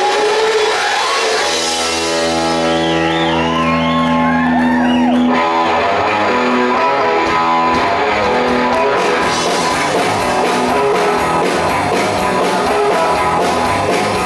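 Live rock band playing on a club stage, led by electric guitar. Sustained notes waver and bend for the first five seconds or so, then the full band with drums comes in on a steady beat about six seconds in.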